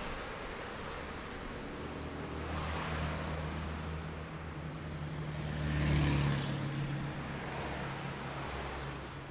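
Low rumbling drone: steady deep hums under a hiss that swells and fades, loudest about six seconds in.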